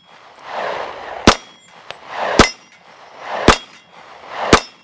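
.45 ACP pistol fired four times in steady succession, about a second apart. Each shot is followed by a faint high ring from the steel target being hit.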